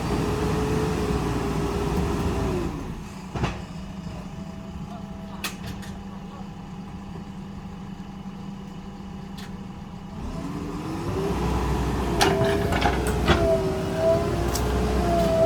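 JCB 3DX Super backhoe loader's diesel engine working under throttle. About three seconds in it drops to a lower, steady idle, then revs back up around ten seconds in with a wavering pitch. A few sharp knocks from the machine come through at times.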